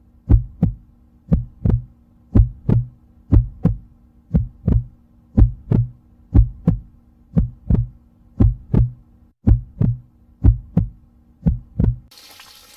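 Heartbeat sound effect: loud paired low thumps about once a second over a faint steady low hum, stopping abruptly about twelve seconds in.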